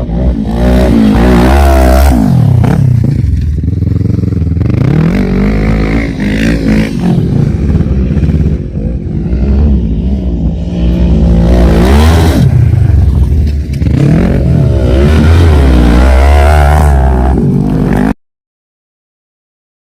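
ATV engine running hard, its pitch rising and falling again and again as the throttle is opened and closed over rough ground, with a deep rumble and rattling underneath. The sound cuts off abruptly near the end.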